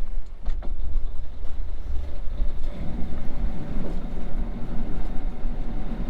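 Steady low rumble of a sailing yacht under way, with a few faint clicks.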